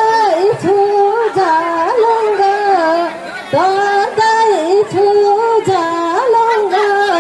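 Singing in a high voice: a slow melody of held notes that step up and down, with short breaks between phrases.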